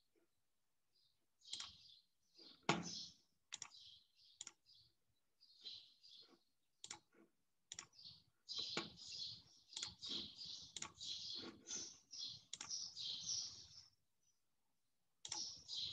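Faint computer keyboard typing and clicking, in scattered short clicks at first and a denser run from about halfway through, stopping shortly before the end.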